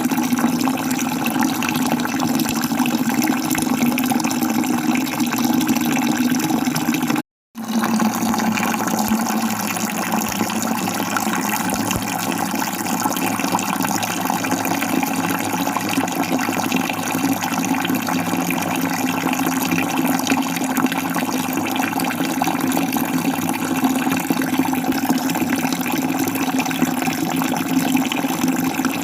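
Waterfall: water falling in a steady, even rush. It cuts out completely for a split second about seven seconds in, then carries on unchanged.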